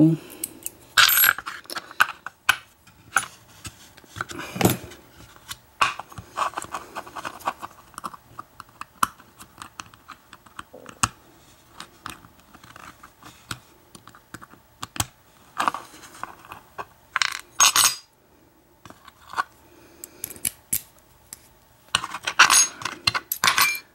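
Small metal clicks, clinks and scrapes from handling a disassembled American 1100 padlock's brass core, its key and pick tools, with tiny pins and springs dropping onto a metal pin tray. These come as scattered single ticks and a few short clattering clusters.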